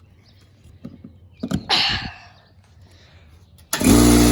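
A few handling knocks and a short hiss, then about three and a half seconds in a loud blast of compressed air starts suddenly, a strong hiss over a steady hum, blowing out a smoke alarm.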